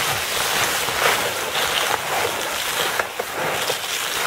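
Tall grass and brush rustling and swishing against a quad recumbent bike as it pushes along an overgrown trail. A steady rustling hiss runs through it, with frequent small clicks and knocks from the bike over the rough ground.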